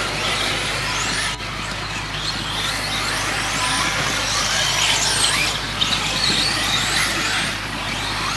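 The electric motors of several 1/10 scale 4WD off-road RC buggies racing, their whines overlapping and rising and falling in pitch as the cars accelerate and brake.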